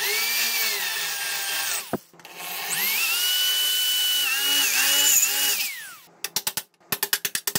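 DeWalt DW511 corded drill run in two bursts of two to three seconds each, drilling out a spot weld in the thin sheet-steel air cleaner. Its whine sags and wavers as the bit bites into the metal, and falls away as the trigger is let go. Near the end comes a quick run of sharp clicks.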